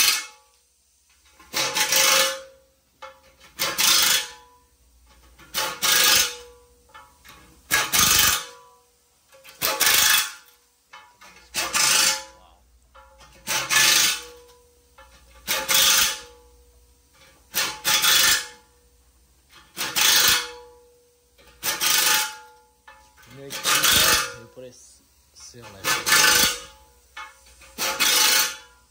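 Repeated rasping, rubbing strokes at an even pace, one about every two seconds, each lasting under a second.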